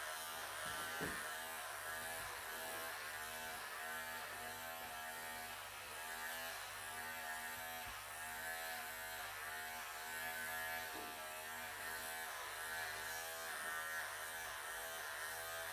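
Electric pet clippers running with a steady buzz whose pitch wavers slightly, shaving through a Persian cat's thick, matted coat.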